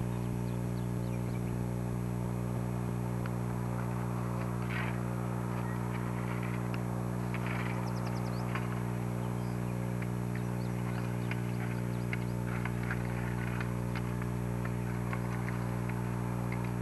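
Steady electrical hum from an old VHS tape's audio track, with faint scattered clicks above it.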